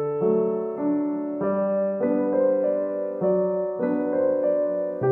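Background music: soft piano playing gentle sustained chords and notes, changing about every half second to a second.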